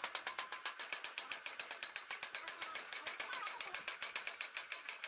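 Hammer rapidly tapping along stick-weld beads on steel plate, chipping off the slag: quick, light metallic taps at about eight a second.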